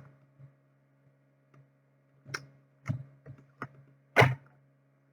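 A few sharp knocks and clicks, the loudest about four seconds in, over a steady electrical hum.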